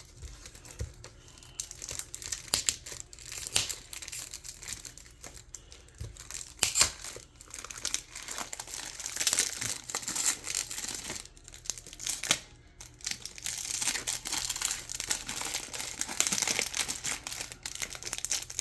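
Packaging around a fountain pen box being crinkled and torn open by hand: a long stretch of irregular crackling and rustling with small clicks, busier in the second half.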